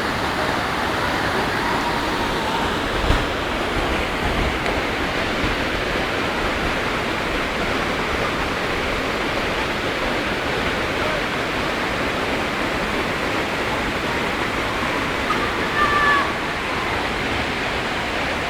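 Sungai Pandan Waterfall's falling water making a steady, even rush.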